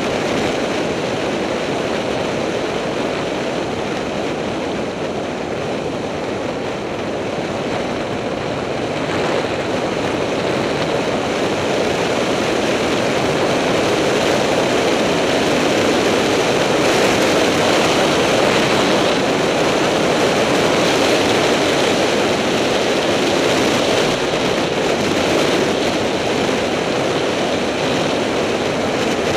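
Wind rushing over an action camera's microphone at high speed downhill, a steady loud roar of air that grows louder about a third of the way in as speed builds.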